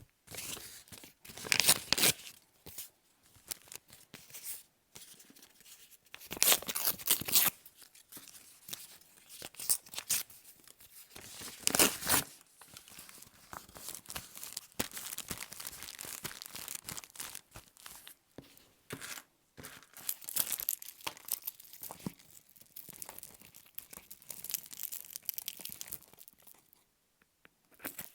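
Paper being torn and handled for an art journal page: irregular rustling and ripping, with a few louder tears among quieter crinkling.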